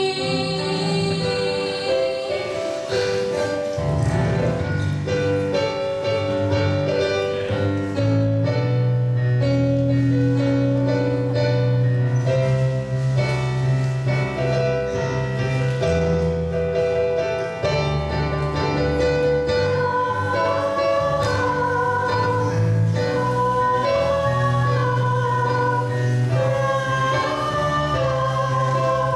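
Theatre backing music: a sung final note, then sustained choir-like chords over a moving bass line.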